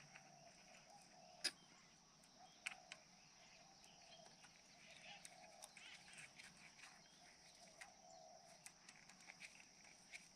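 Near silence: faint outdoor background with a steady high-pitched hum and a few sharp light clicks, the loudest about a second and a half in.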